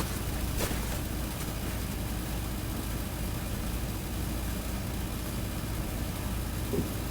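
A steady low mechanical drone like an idling engine, with a light knock about half a second in and another near the end.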